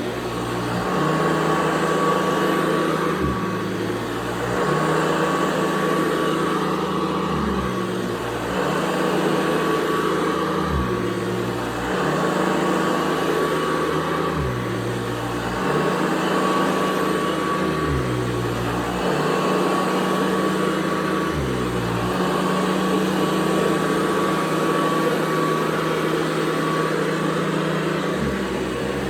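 1984 Hoover Convertible upright vacuum cleaner running: a steady motor hum with a high whine, the low end shifting every few seconds.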